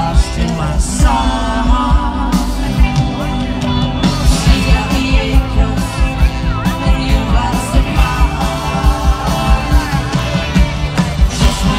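Live band playing a pop song with singing over a stadium PA, heard from within the crowd, with a steady drum beat.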